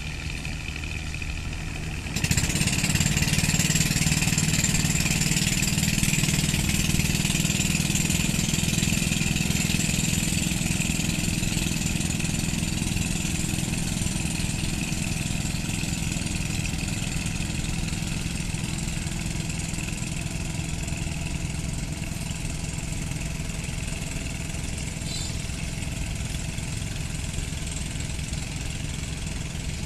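Small engine of an outrigger fishing canoe idling, then throttled up sharply about two seconds in and running steadily, slowly fading as the boat pulls away.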